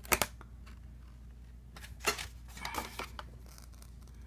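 A sharp click just after the start, then paper card rustling and scraping as a printed backing insert is slid off a metal Blu-ray steelbook case by hand.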